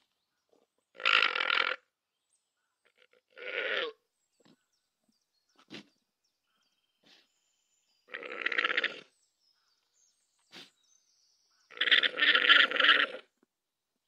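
Alpaca calling: four short raspy calls a few seconds apart, the last the longest and broken into three pulses, with a few faint clicks in between.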